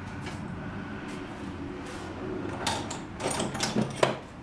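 Tractor air filter bracket and housing being handled by hand, with a few knocks and rattles of plastic and metal near the end.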